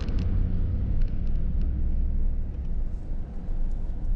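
Low, steady rumble of a car driving slowly along a street, heard from inside the cabin, with a few faint ticks about a second in.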